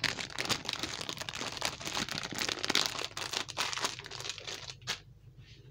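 Cellophane craft-supply packs crinkling and crackling as they are handled and shuffled. The crackles are dense and irregular, end with one sharper click about five seconds in, and then stop.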